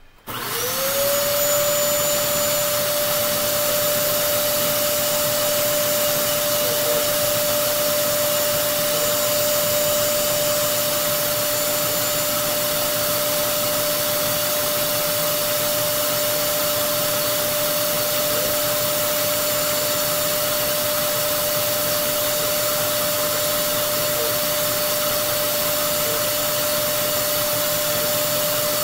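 Bissell DeepClean Premier carpet cleaner switched on: its motor spins up within about half a second and then runs steadily, with a high steady whine over a loud rush of air.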